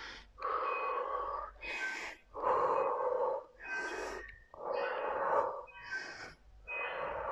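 A woman breathing hard in a quick, even rhythm, about one breath a second, out of breath from the exertion of donkey kicks.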